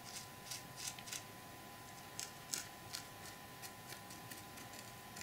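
Faint, irregular scratches and scrapes as a small plastic spoon and a plastic tool push loose tea leaves around a glued model flower bed.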